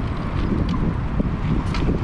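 Wind buffeting the microphone of a camera riding along on a moving bicycle: a steady low rumble, with a few faint clicks.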